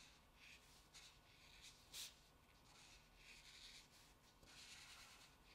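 Faint scratching of a brush pen's tip stroking across paper in short, irregular strokes, with one sharper tick about two seconds in.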